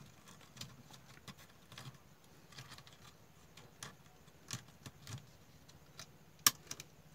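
Scattered light clicks and taps of a small screwdriver working at an angle grinder's carbon brush holder, with one sharper click near the end.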